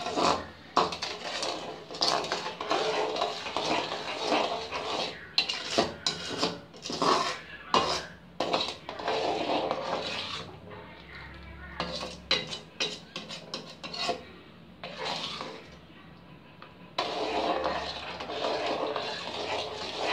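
A perforated metal ladle scraping and clinking against the sides and bottom of a metal kadai as sugar and water are stirred to dissolve the sugar. The strokes are irregular and thin out for a few seconds past the middle.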